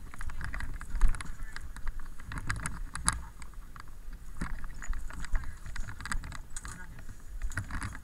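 Irregular clattering and knocking of a firefighter's gear and footsteps while moving with a hoseline, over a steady low rumble.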